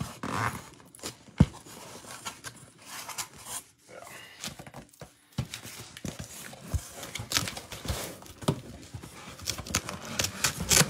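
Cardboard shipping case being cut and torn open by hand: irregular scraping, tearing and rustling of cardboard flaps, with a sharp knock about a second and a half in.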